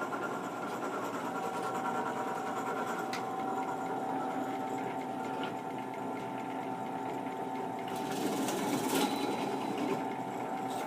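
Craftsman benchtop drill press running with a steady motor whine, the drill bit boring holes in a small wooden shim, with a louder, hissier stretch about eight seconds in.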